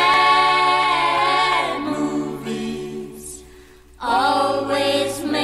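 Background music: voices singing long, layered notes, fading about three seconds in and swelling back a second later.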